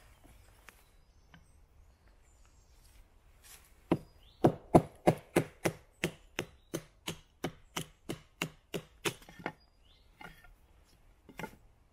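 Batoning: a mallet strikes the spine of a small Taxus Wisdom bushcraft knife with a 9 cm blade, driving it through a piece of wood to split off small kindling. A fast run of about twenty sharp knocks, three or four a second, starts about four seconds in. A few lighter knocks follow near the end.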